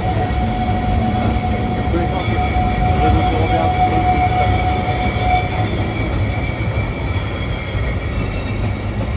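Great Orme Tramway cable-hauled tramcar running along its track: a steady low rumble with a thin, steady high whine that stops about six seconds in.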